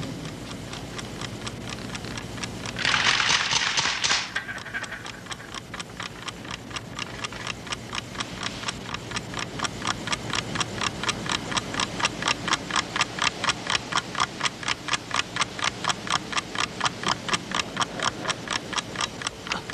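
A short burst of hiss about three seconds in, then steady, even clicking at about four clicks a second that slowly grows louder.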